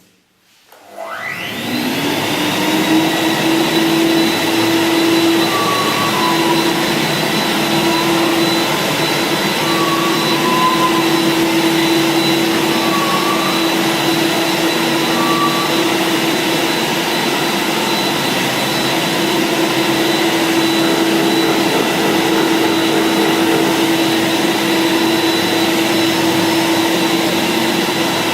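Vacuum cleaner switched on about half a second in, its motor spinning up to full speed over a second or two, then running steadily with a high whine while the sanded parquet floor is vacuumed.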